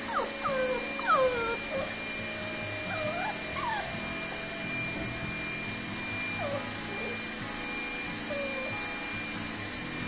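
Beagle puppy whining and giving short falling yelps, loudest in the first couple of seconds with fainter whines later, over the steady hum of a running vacuum cleaner. The cries are the puppy's distress at the vacuum's noise.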